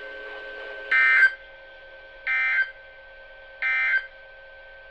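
NOAA Weather Radio EAS end-of-message signal: three short bursts of SAME digital data tones, each about a third of a second long and spaced just over a second apart, closing the weekly test. A faint steady tone and hiss from the radio's receiver run underneath.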